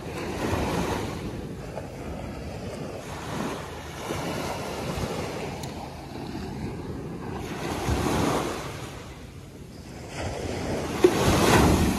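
Small surf waves breaking and washing up a sandy beach in repeated swells, with wind buffeting the microphone. A brief knock comes just before the last and loudest wash near the end.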